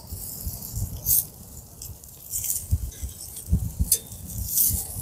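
Metal grill tongs clicking and scraping against a charcoal grill's grate as raw pork belly strips are moved and laid out. There are a few short scrapes and clicks over a low, uneven rumble.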